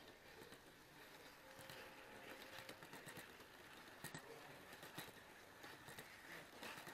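Faint, irregular clicking of HO-scale model train wheels running over the track, over a quiet hall background.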